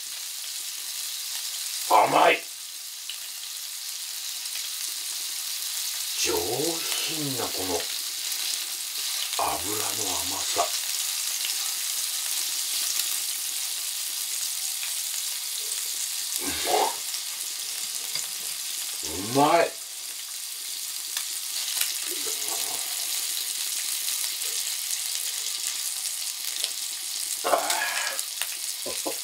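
Horumon (offal) sizzling and crackling steadily in a hot grill pan as the fat renders. A few short, wordless vocal sounds break in now and then.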